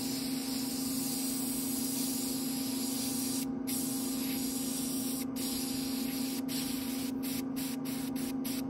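Airbrush spraying paint in a steady hiss, with several short breaks in the spray during the second half. A steady low hum runs underneath.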